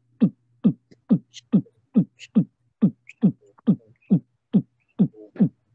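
Intro music beat: a deep kick drum hitting steadily, a little over two hits a second, each hit dropping in pitch, with a few faint higher accents between the hits.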